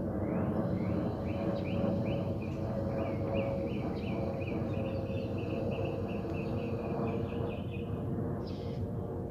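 Steady low rumble of a jet airliner passing high overhead, with a bird singing a long run of quick repeated chirps, about three a second, that stops near the end.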